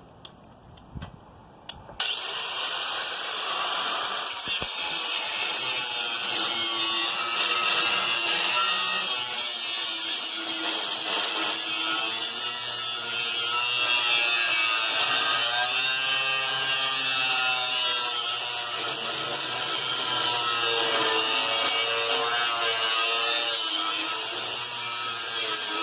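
A power cutting tool starts about two seconds in and runs continuously, cutting through the steel body of a safe. It makes a loud hiss over a motor whine whose pitch sags and recovers as the cut loads it.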